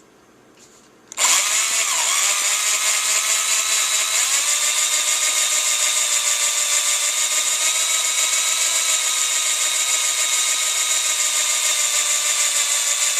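A cheap cordless drill starts about a second in and runs steadily, turning a diamond hole saw that grinds into a brass cartridge case, with a high hiss over the motor whine. The pitch dips briefly twice early on before holding steady.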